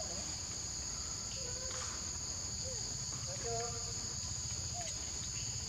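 Steady high-pitched insect chorus in the forest, with a few short faint pitched calls scattered over it.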